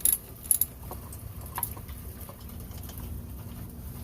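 Sharp metallic clinks of tools and bolts as a pool pump motor is unbolted, two loud ones just after the start and a lighter one about a second and a half in, over a steady patter of light rain.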